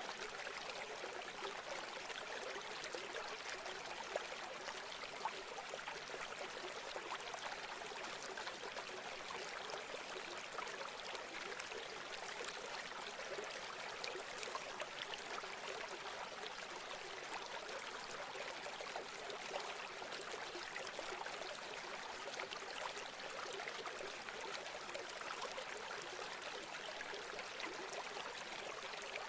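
A river flowing: a steady rush of water with fine babbling and small splashes, without a deep rumble.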